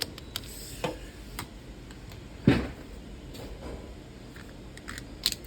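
Scattered light clicks and taps of small parts and a screwdriver being handled while searching for a screw, with one louder knock about two and a half seconds in.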